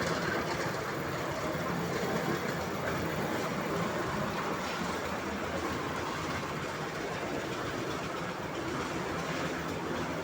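Concrete mixer running, its drum churning with a steady rumbling clatter.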